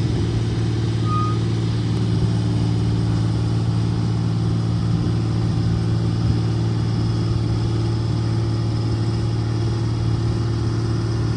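Heavy diesel engine idling at a steady, even pitch.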